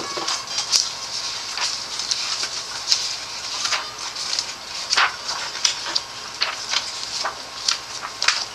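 Pages of a thick glossy magazine being turned by hand: a quick, irregular run of papery swishes and crinkles, a dozen or so through the stretch.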